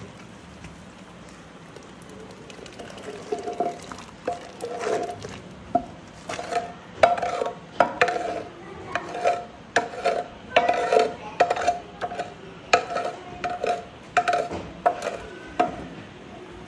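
A metal saucepan scraping thick mole out of a large glazed clay cazuela and knocking against the rim of a steel stockpot: irregular scrapes and clinks, one or two a second, with a slight ringing tone. They start about three seconds in and stop just before the end.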